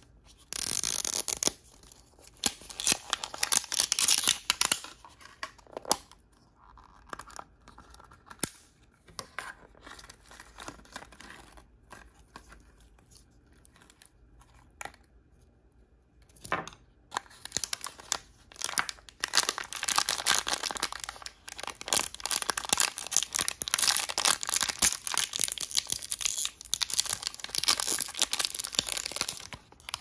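Plastic blind-bag packaging being torn open and crinkled by hand, in dense crackly bursts at the start, scattered clicks and rustles in the middle, then a long stretch of steady crinkling near the end.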